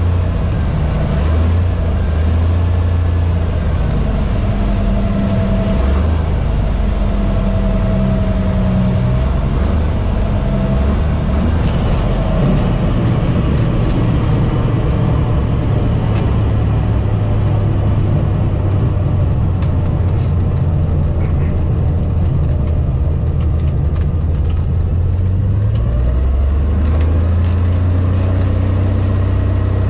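A Cessna 182's six-cylinder piston engine and propeller running at low power through the approach and landing, with a rush of wind. From about halfway the sound turns rougher, with scattered knocks as the wheels roll on the runway, and near the end the engine note rises.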